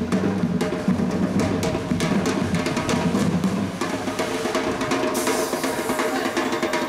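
Marching band drums in the street: a marching bass drum beaten with a mallet together with other drums, playing a fast, continuous rhythm of strokes.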